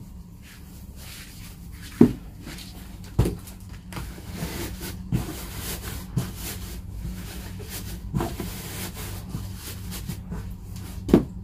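Cardboard box being handled and a cotton shirt pulled over it: rustling of cloth and cardboard, broken by about six sharp knocks as the box bumps and shifts on the table, the loudest about two seconds in and near the end.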